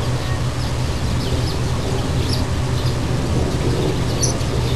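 A steady low rumble with a few faint, short bird chirps scattered over it; no cat call is heard.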